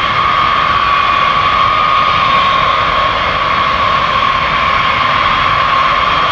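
B-52H Stratofortress taxiing, its eight Pratt & Whitney TF33 turbofan engines running with a steady high whine over a broad roar.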